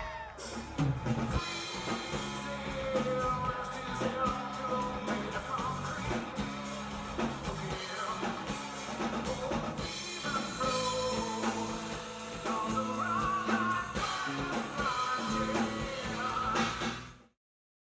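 Rock band playing a 90s grunge cover song, with drum kit, electric guitar and lead vocals. The music cuts off abruptly near the end.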